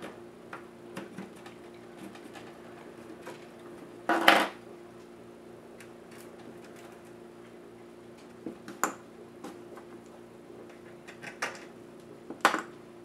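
Scattered plastic clicks and snaps as the plastic case of an ASUS Eee PC netbook is pried apart along its seam with plastic pry tools. There is a louder clatter about four seconds in and two sharp clicks later on, over a faint steady hum.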